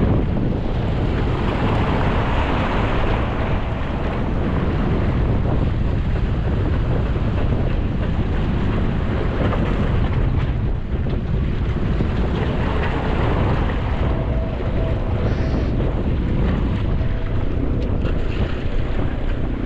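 Wind buffeting the microphone, with sea waves washing beneath it in a steady, loud rush.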